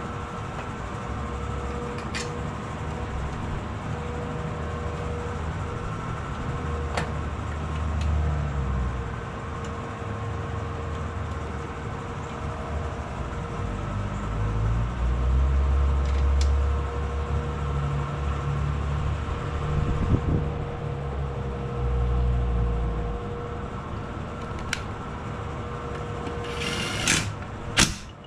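Steady running of a shop fan, with a few light clicks of tools and parts being handled, and a short, louder clatter near the end.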